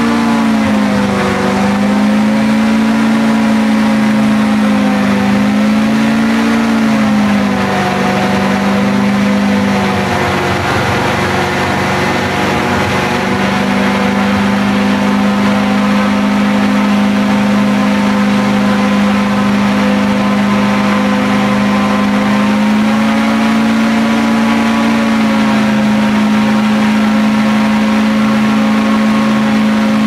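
Airboat engine and propeller running at speed, a loud steady drone. Its pitch wavers up and down for the first several seconds, dips briefly about ten seconds in, then holds steady and rises a little about twenty-three seconds in.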